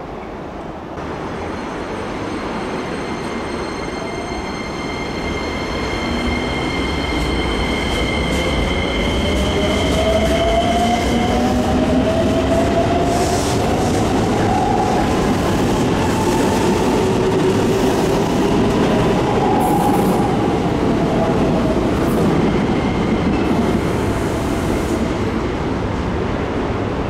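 Red Keikyu electric commuter train pulling away: its traction motors whine, rising in pitch as it gathers speed, with wheel clicks over the rail joints. A steady high whine sits over the first part.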